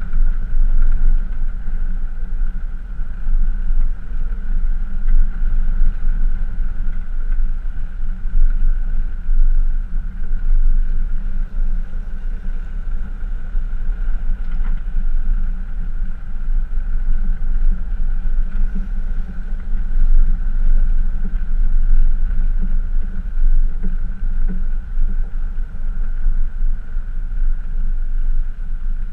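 Steady rumble of a pickup truck driving and towing an off-road camper trailer along a gravel road, picked up by a camera in the truck bed, with a constant high hum running over the low noise.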